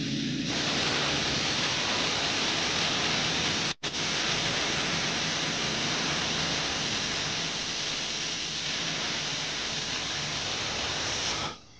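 Aluminium stovetop pressure cooker hissing steadily as steam jets out from around its weight valve: the cooker has built up pressure and is venting. The hiss strengthens about half a second in, breaks off for a moment just before four seconds in, and cuts off suddenly near the end.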